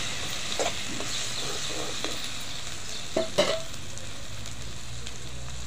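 Chopped onion, green chillies and ginger-garlic paste sizzling in oil in a steel kadai, with a steel spoon stirring and knocking against the pan a few times, the loudest pair of knocks about three seconds in. After that the frying sizzles on alone.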